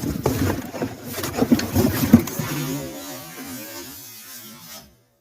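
Rustling, scraping and knocking of packing being handled as a siren is unpacked, with a loud knock about two seconds in. This gives way to a low wavering hum that fades out and cuts off just before the end.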